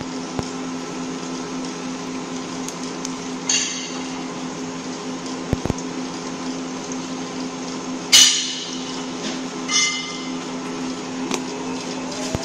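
Argon-arc (TIG) welding arcs burning on a CNC welding machine: a steady buzzing hum with hiss, broken by a few short sharp bursts, three of them louder than the rest.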